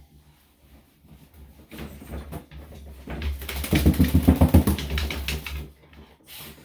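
A wet Shih Tzu-Havanese dog shaking itself off, its ears and coat flapping in a rapid rattle for about two seconds around the middle. A towel rubs its coat softly just before.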